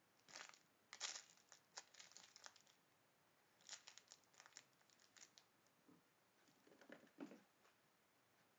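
Chihuahua puppy chewing and pulling at plush toys: faint quick crackling and rustling in three spells, with short rests between, the last one duller.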